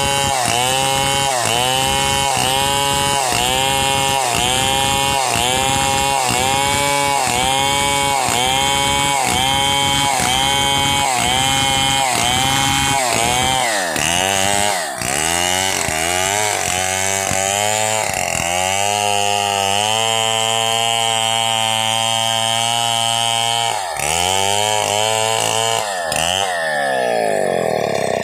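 Stihl two-stroke chainsaw cutting through hardwood plank in quick repeated cuts, its engine pitch dipping and recovering a little over once a second as the chain bites and clears. About halfway through the cuts slow; the saw holds a steady high rev for several seconds, swings again, and drops back toward idle near the end.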